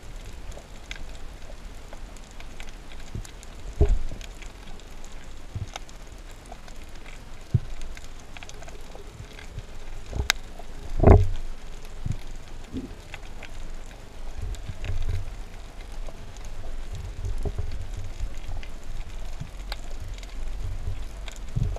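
Underwater ambience heard through a camera housing: a steady fine crackling, with a few dull low thumps, the loudest about eleven seconds in, and a low rumble through the last third.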